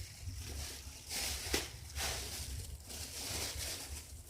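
Slime being handled and worked in the hands: soft rustling and squishing with a sharp click about one and a half seconds in.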